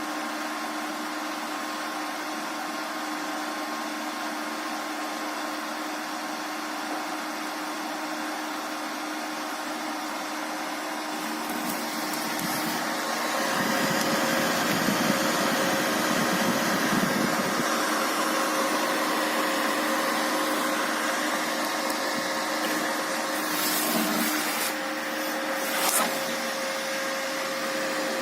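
Inverter welding machine running on test: a steady whir of its cooling fan with a hum, growing louder about halfway through, with a few sharp crackles near the end.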